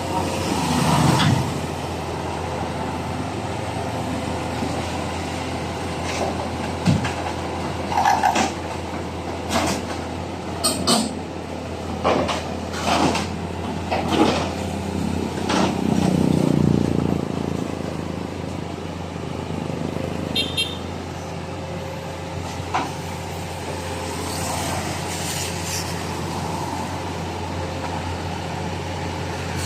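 Backhoe's diesel engine running steadily, with a string of sharp metal knocks and clanks in the middle stretch and a brief swell in the engine sound, as the machine is loaded onto a truck.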